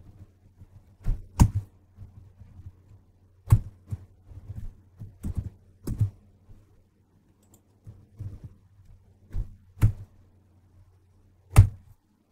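Keystrokes on a computer keyboard, irregularly spaced, some landing as heavy thunks, over a steady low hum.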